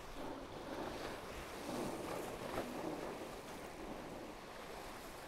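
Water rushing and splashing along the hulls of a Tornado racing catamaran under sail, with wind on the microphone; it swells a little in the middle, with one sharper splash about two and a half seconds in.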